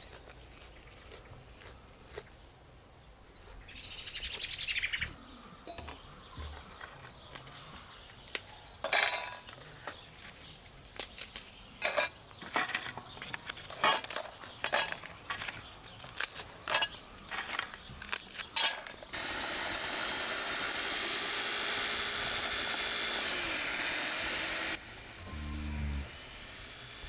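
A bird calls briefly. Then dry square biscuits are snapped by hand into a small electric chopper's bowl, a quick run of sharp cracks, after which the chopper motor runs steadily for about six seconds grinding them to crumbs and cuts off suddenly.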